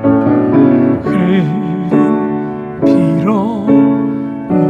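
Piano chords struck about once a second, under a man's voice singing long held notes with vibrato.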